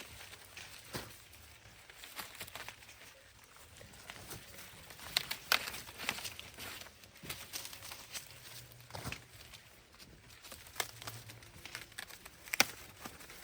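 Dry corn plants rustling and crackling, with irregular sharp snaps and footsteps, as of corn being picked by hand; the two sharpest snaps come about five seconds in and near the end.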